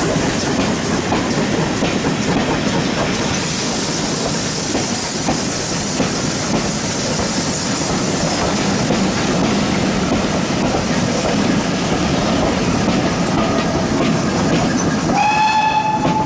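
Maroon British Railways Mk1 passenger coaches rolling past, their wheels clattering steadily over the rails. Near the end a steady high tone with overtones sounds for about a second.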